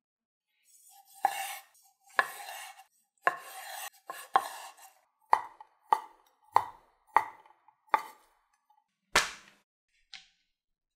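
Kitchen knife slicing through cherry tomatoes and then a sausage on a wooden cutting board. A few longer slicing cuts are followed by a row of short knocks of the blade on the board, about every 0.6 s, and one louder knock near the end.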